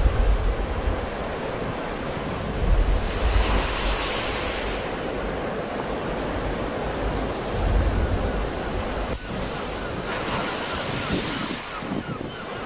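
Sea waves breaking and washing up a shore, with two louder surges of wash, about three seconds in and again about ten seconds in. Wind buffets the microphone in low gusts.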